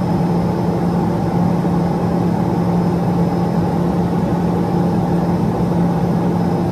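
Rolls-Royce (Allison) turboprop engine and propeller of a Cessna P210 Silver Eagle heard from inside the cockpit: a steady, unchanging drone with a strong low hum and a faint high whine over it.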